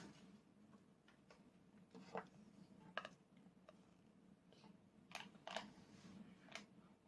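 Near silence with a few faint, short clicks and taps: a spoon against a small rice bowl while a toddler is fed.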